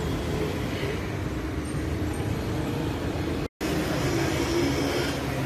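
Steady urban street traffic noise, a continuous low rumble, broken by a split-second gap about three and a half seconds in.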